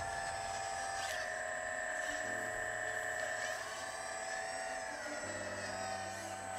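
Hydraulic pump and electric motor of an RC hydraulic excavator whining steadily. The pitch shifts in small steps a few times as the load changes.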